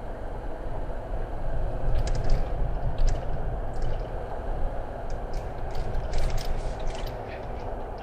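Car driving slowly on a gravel road, heard from inside the cabin: a steady low rumble of the tyres and engine, with scattered sharp ticks and crackles from the gravel, most of them around two seconds in and again past the middle.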